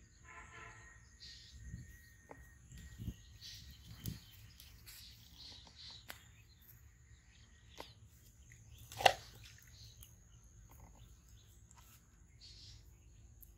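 Birds chirping over a steady high insect whine, with one loud, sharp sudden sound about nine seconds in.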